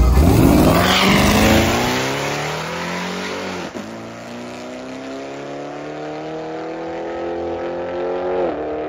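Corvette C7's V8 launching hard off the drag-strip start line, then pulling away with its pitch rising through the gears, dropping at upshifts about three and a half seconds and eight and a half seconds in.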